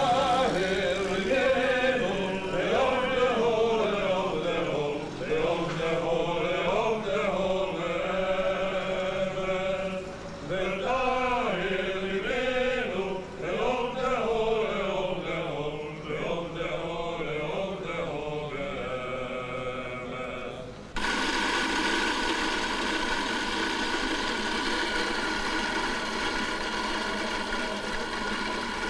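Singing in a slow, chant-like melody for about twenty seconds, then cut off abruptly. A shop's electric coffee grinder takes over, running steadily.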